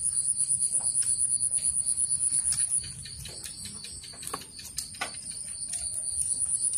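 An insect trilling, a high pulsed chirp at about eight beats a second that fades for a few seconds midway and comes back near the end. Light clicks of chopsticks on bowls and snail shells sound over it.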